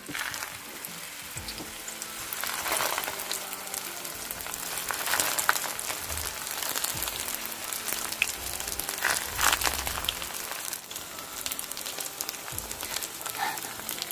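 Meat-filled rolled crepes frying in vegetable oil in a pan: a steady sizzling hiss full of fine crackles, swelling and easing a little.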